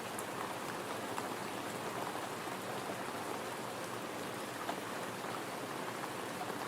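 Gentle rain falling steadily, with scattered drops ticking on a surface.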